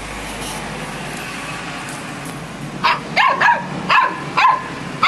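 Samoyed puppy vocalising at another dog, a quick run of about six short, high yips and barks that each drop in pitch, starting about three seconds in.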